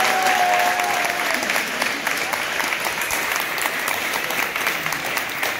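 A room of people applauding: many hands clapping steadily and densely.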